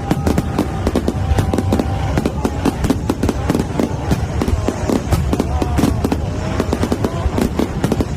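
Fireworks display going off in rapid, unbroken succession: a dense run of bangs and crackles, many per second, with no pause.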